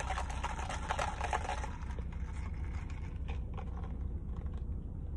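Faint crackling and a few soft clicks as iced coffee is handled and sipped from a plastic cup, over a steady low hum inside a car cabin.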